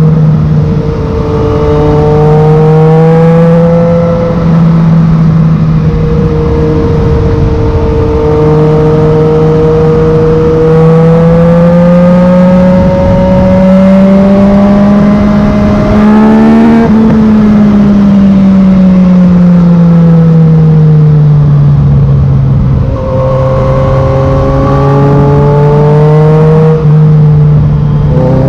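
Yamaha MT-09's three-cylinder engine running through a Black Widow carbon full exhaust while riding. The pitch holds, climbs slowly to a peak, then falls away and levels out lower, with a few brief dips in loudness.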